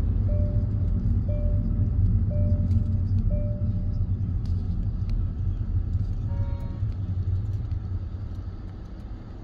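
Car driving in city traffic, heard from inside the cabin as a steady low road and engine rumble. A short electronic beep repeats about once a second for the first few seconds, and a brief chime sounds about six seconds in.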